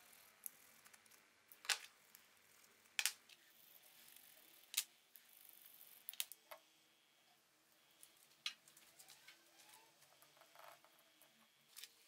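Small knife-handle parts being handled on a wooden workbench: a scattering of sharp clicks and taps as wooden handle scales and brass pieces are picked up and set down, with soft cloth rubbing between them.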